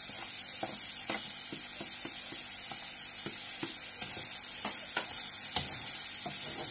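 Prawns, diced ham and surimi sticks sizzling in a frying pan, with a wooden spatula knocking and scraping against the pan as they are stirred. The knocks come irregularly, about one or two a second, the sharpest about five and a half seconds in.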